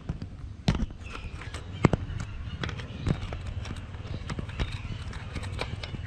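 An oriental pied hornbill's bill knocking and clicking close to the microphone. Two sharp, loud knocks come in the first two seconds, followed by a run of lighter taps, a few a second.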